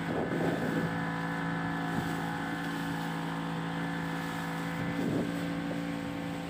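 Outboard motor of a small boat running at a steady speed under way, its even hum over the rush of water along the hull.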